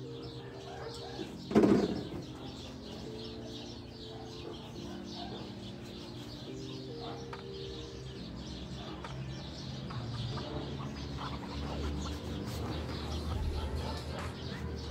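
CG-type 200cc single-cylinder four-stroke motorcycle engine, rebuilt with a crossover cam and high-compression piston, running at idle on a bench. The owner says its carburettor is dirty. There is a short loud noise about a second and a half in, and the low running note grows a little stronger near the end.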